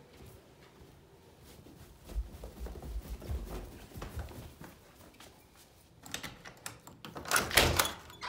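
Footsteps thudding down carpeted stairs, then a door being unlatched and pulled open with a loud rattle near the end.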